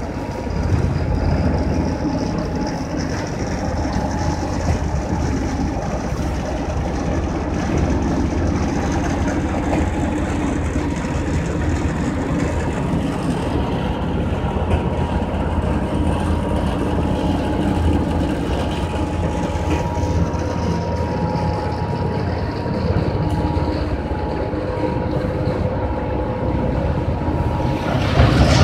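Machinery of a water-soluble fertilizer production line running steadily: a constant low rumble from motors and processing equipment, with a faint steady whine on top.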